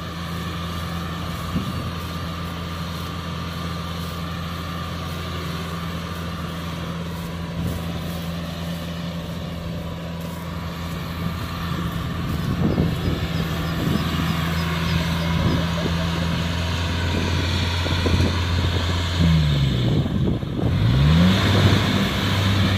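Kubota DC60 rice combine harvester running steadily, with its diesel engine dropping in pitch and coming back up about twenty seconds in.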